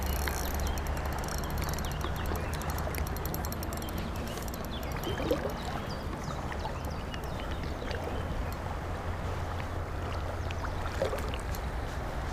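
Shallow river running steadily over a stony bed, heard close up from midstream. A fast faint ticking comes over the first few seconds.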